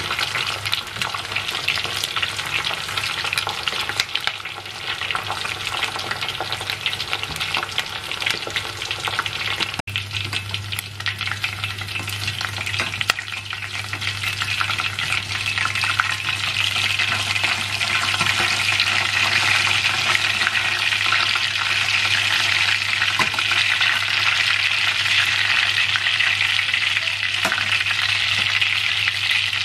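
Hot oil sizzling and crackling steadily as squares of chicken-topped bread deep-fry in a pot, over a steady low hum. There is a brief break about ten seconds in, after which the sizzle is louder, with a few light clicks.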